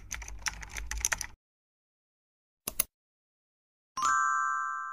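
Keyboard typing sound effect, a quick run of key clicks lasting about a second and a half, then a single brief click. About four seconds in, a pop-up chime rings and fades.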